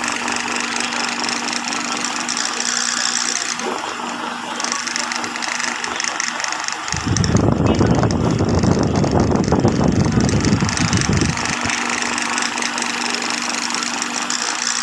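High-speed industrial sewing machine running: a steady motor hum with hiss, and a louder, rougher stretch of rapid stitching for about four seconds in the middle.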